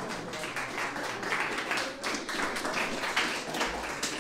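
Audience applauding, many hands clapping in a dense, irregular patter.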